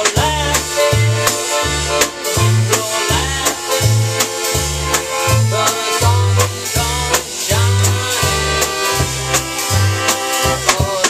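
Two accordions, one a piano accordion, playing an upbeat tune with a drum kit. Steady bass notes fall about twice a second under the held accordion melody, with frequent snare and cymbal hits.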